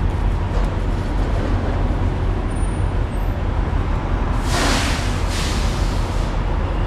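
Steady low rumble of idling vehicle engines, with a short hiss a little over four seconds in and a fainter one just after.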